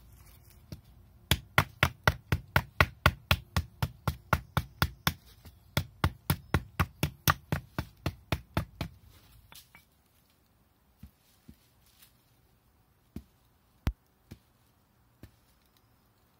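A flat hand-held stone chopping at a wooden branch: a run of about twenty sharp knocks, about two and a half a second, that stops about nine seconds in. A few scattered single knocks follow.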